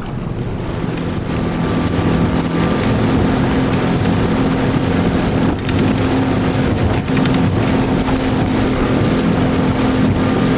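A small fishing boat's engine running steadily under way, with wind on the microphone and a few brief knocks as the boat rides the chop.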